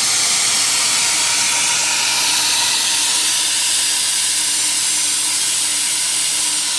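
Ride-on live steam locomotive venting steam in a loud, steady hiss.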